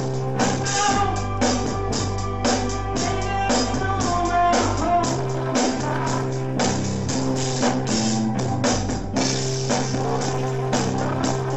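Rock band playing live: drum kit struck with sticks keeping a steady beat under electric guitar and sustained low bass notes.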